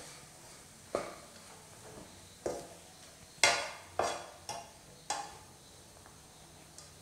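A spatula stirring and turning fried rice in a pan, knocking against the pan six times with short ringing tails, the loudest near the middle.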